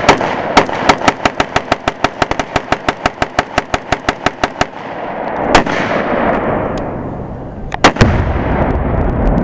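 Rapid gunfire: a long string of evenly spaced shots, about six or seven a second, lasting some four and a half seconds. Then a single loud shot about five and a half seconds in, and two more loud shots close together near the eight-second mark.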